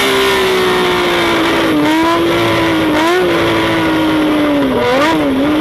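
High-revving engine held at high rpm, its pitch sagging slowly, with brief dips and quick rises about two, three and five seconds in.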